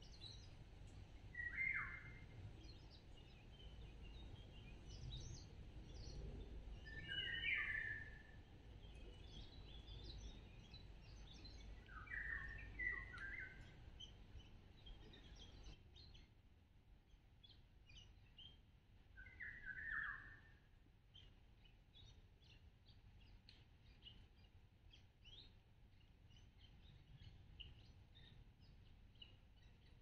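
Summer woodland birdsong: one songbird repeats a short song phrase about every five to seven seconds, over many faint, high chirps from other birds. A low background rumble fades away about halfway through.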